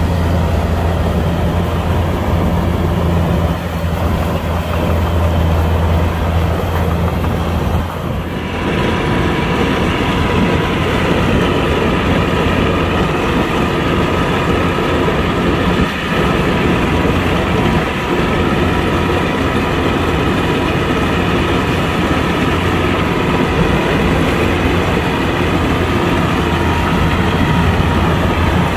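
Kubota combine harvester's diesel engine and working machinery running steadily under load, a deep hum layered with many steady machine tones. The sound dips briefly about eight seconds in and then carries on fuller in the upper tones.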